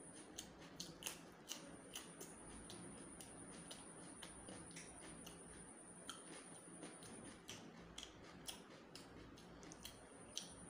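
Close-miked eating sounds: a man chewing chicken curry and rice by hand, with irregular sharp wet clicks and smacks of the mouth and fingers, over a faint steady high-pitched whine.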